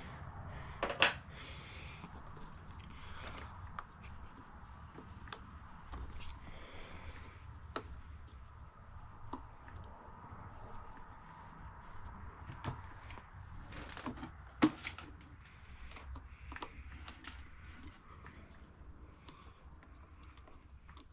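Hands taking apart the blower's air filter housing: scattered clicks, taps and rustles of plastic parts and tools, with two louder knocks about a second in and about fourteen and a half seconds in.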